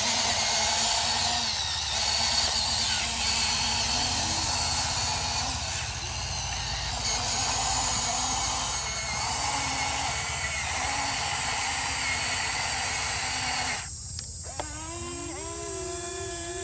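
Radio-controlled excavator's electric motor and pump whirring steadily as the machine digs and swings. About fourteen seconds in, this changes to a clearer motor whine that slides up and down in pitch.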